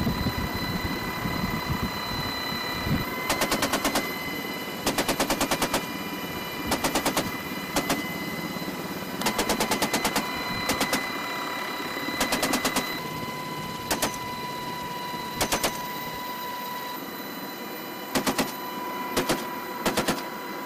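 GAU-18 .50-calibre machine gun firing short bursts of a few rounds each from the door of an HH-60 Pave Hawk helicopter in flight, about a dozen bursts starting some three seconds in. Under the shots runs the helicopter's steady cabin noise with a constant whine.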